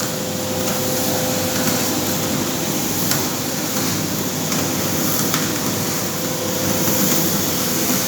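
5 kg-batch coffee roasting machine (type N5000i) running on a trial run: a steady whir and rush from its drum and fan, with a constant hum. A few faint clicks can be heard over it.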